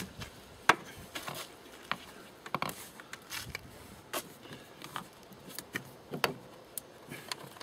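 Air filter housing lid and its clips on a Citroen C15 engine being handled and pressed into place by hand, giving scattered clicks and knocks, the sharpest about a second in; the engine is not running.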